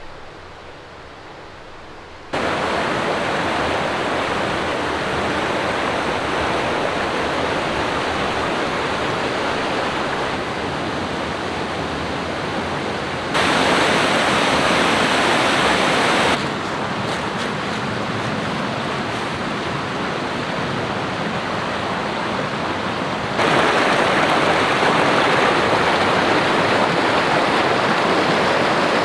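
Rushing mountain creek tumbling over boulders and cascades, a steady wash of water noise. Its loudness jumps abruptly several times: up about two seconds in, louder for a few seconds near the middle, and louder again over the last few seconds.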